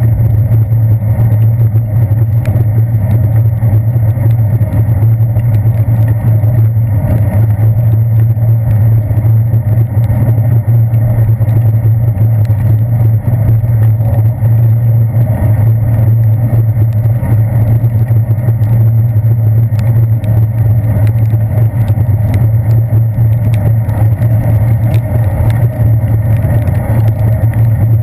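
Steady, loud low rumble of a bicycle rolling on wet pavement, picked up through a handlebar-mounted GoPro Hero 2 in its sealed housing: road vibration and wind noise with no breaks or distinct events.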